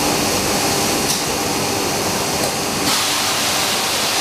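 Homag CNC working center running: a steady rushing hiss with a faint underlying machine hum. The hiss turns brighter about three seconds in.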